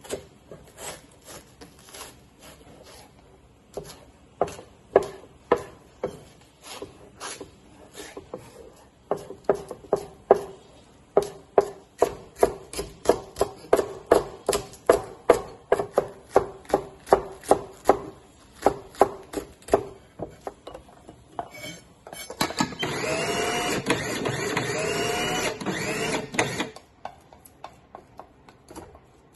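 Kitchen knife chopping a leek on a wooden cutting board: a steady series of sharp knocks, two to three a second. About 22 seconds in, a Panasonic electric food processor runs for about four seconds, mincing the leek.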